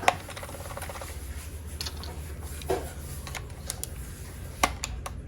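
Scattered light clicks and taps, a few sharp ones about three seconds and near five seconds in, over a low steady hum.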